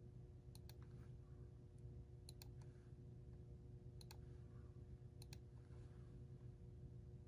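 Faint computer mouse clicks, four quick pairs of clicks about a second and a half apart, as copies of a pattern are placed in CAD software. A low steady hum lies underneath.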